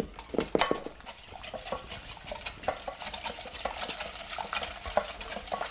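Wire whisk beating eggs in a glass bowl, a fast run of clicks and scrapes against the bowl.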